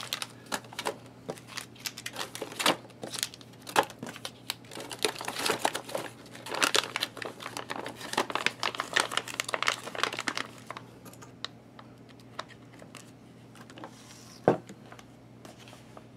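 Crinkling and rustling of a plastic ration-heater bag and foil food pouches being handled, as the pouches are slid in and the bag's top is folded shut. The crackling is dense for about ten seconds, then thins out, with a single knock near the end.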